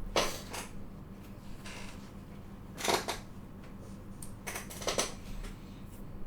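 Small hard parts and tools being handled and set down on a workbench, giving a few short clicks and clatters: one near the start, one about three seconds in and a quick cluster about five seconds in.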